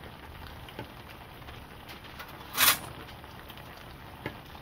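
Kimchi and pork back-rib braise simmering in a wide pan, a steady bubbling with small scattered pops and clicks. About two and a half seconds in comes a brief, loud, hissing burst of noise.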